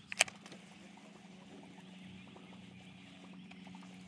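Baitcasting reel: a sharp click about a quarter second in as the reel is engaged after the cast, then light ticking as it is cranked, over a faint steady hum.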